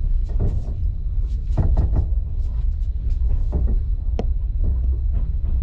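Train running along the rails, a steady heavy low rumble broken by irregular clicks and knocks from the wheels and carriage, with one sharper click about four seconds in.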